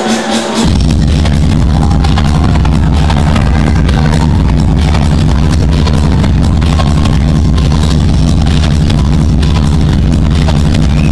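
Loud electronic dance music with a heavy bass over a hall's PA system, cutting in suddenly about half a second in.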